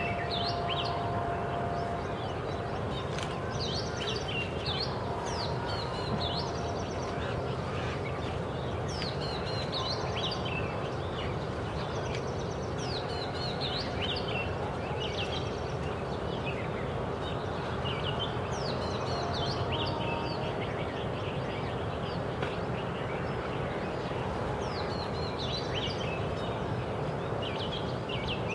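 Male oriental magpie-robin singing: a run of short, varied whistled phrases with quick rising and falling notes, repeated every second or two over steady background noise.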